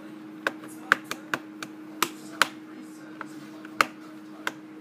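Scattered sharp clicks and taps, about eight of them at uneven intervals, as the plastic laptop case and tools are handled during disassembly, over a steady low hum.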